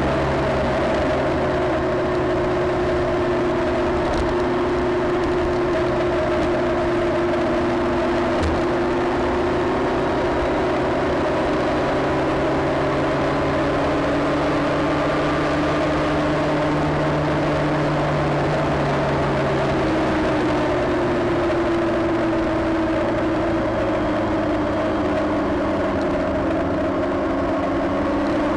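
Motorcycle engine running at a steady cruise, its note holding level and shifting slightly about two-thirds of the way through, under a constant rush of wind and road noise.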